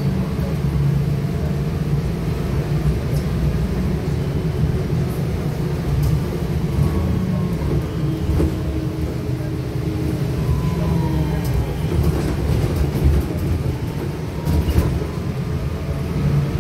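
Trolza-5265.00 Megapolis trolleybus in motion, heard from inside the passenger cabin: a steady low rumble from the running gear and the road, with a faint whine that glides up and down in pitch now and then.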